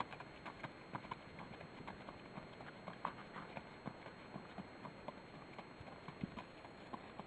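Faint, irregular clip-clop of a horse's hooves as it walks on sandy arena footing.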